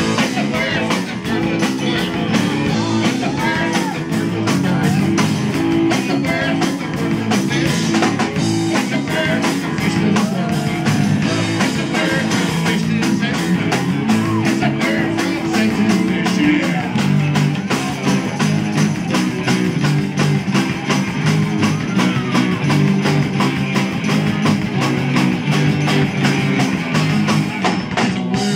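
Live rock band playing loudly through amplifiers: electric guitars over a drum kit with a steady beat.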